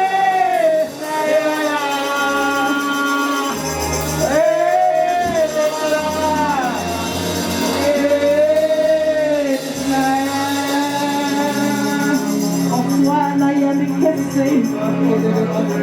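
Gospel praise music: a voice singing long held notes that bend in pitch, over keyboard and bass, with steady shaken percussion.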